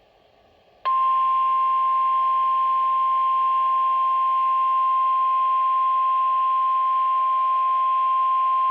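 Emergency alert attention signal: the NOAA Weather Radio 1050 Hz warning alarm tone, a single unbroken beep. It starts abruptly about a second in after a short silence and holds steady, signalling that a severe weather warning message follows.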